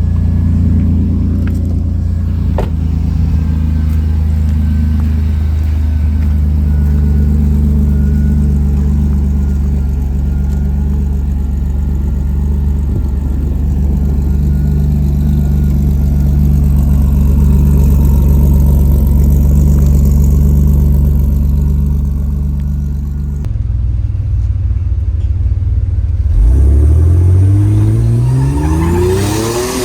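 Turbocharged 4.3-litre V6 pickup engine running steadily while the truck is driven, then, after an abrupt break in the sound about 23 seconds in, revving up hard with its pitch climbing fast near the end.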